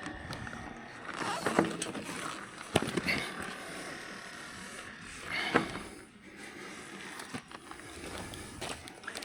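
Scuffing steps and knocking stones on a steep rocky trail as a loaded touring bicycle is pushed uphill, with a few short grunts of effort.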